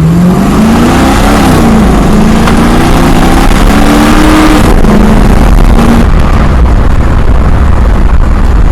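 1972 Camaro's engine accelerating hard: its pitch climbs, drops at a gear change about a second and a half in, climbs again, and drops at a second shift near the five-second mark. It then holds a steady pitch before settling into a level rumble.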